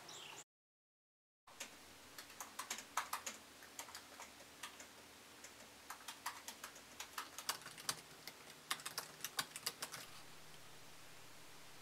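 Irregular sharp clicks of keys being typed on a computer keyboard, in quick uneven runs, stopping about ten seconds in and leaving a faint steady room hum. The sound drops out completely for about a second near the start.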